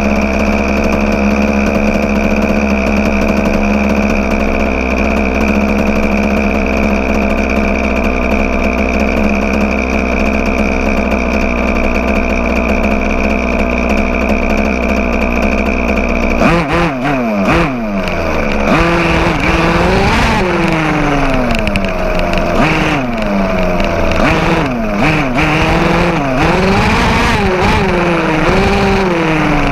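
Small two-stroke engine of a 1/5-scale gas RC car, heard close up from on board. It idles steadily, then about sixteen seconds in it revs up and the car drives off, its pitch rising and falling over and over as the throttle is worked.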